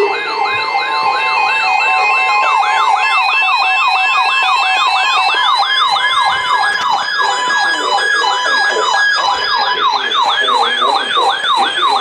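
Several electronic weather-alert tones sounding at once: a siren-like yelp sweeping up and down about two to three times a second, over a steady high tone and a stepping two-note beep that drops out about halfway through.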